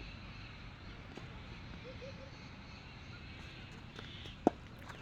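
A cricket bat strikes a ball once with a single sharp knock near the end, over a steady low outdoor background noise.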